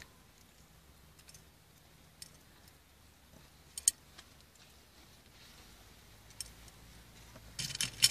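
Small metal pliers and wooden matchsticks clicking against an open tin box: a few sharp isolated clicks, then a quick run of rattling near the end as matches are handled in the tin.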